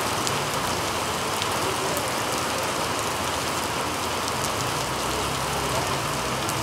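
Heavy rain falling steadily: an even hiss, broken by scattered sharp ticks of single drops.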